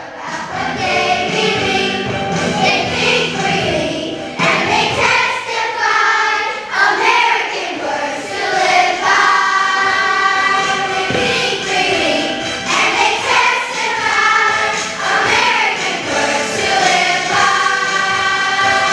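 A choir of young children singing a song in unison with instrumental accompaniment.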